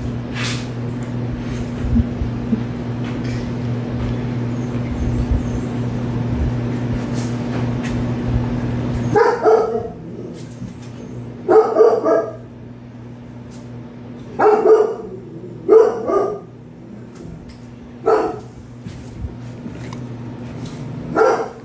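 A steady low hum runs for about the first nine seconds, then stops. A dog then barks in short bursts, about seven times, spread through the rest of the stretch.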